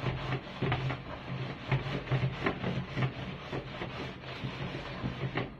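Crayfish knocking and rattling inside a covered cooking pot as it is shaken on the stove: an irregular clatter of about three or four knocks a second over a steady low hum.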